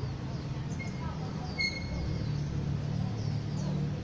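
Outdoor street ambience: a steady low rumble of traffic, with small birds chirping repeatedly and two short high whistled calls about one and two seconds in.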